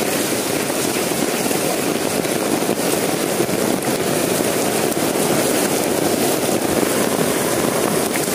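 Heavy rain pouring onto a flooded street, a steady, dense rush of noise.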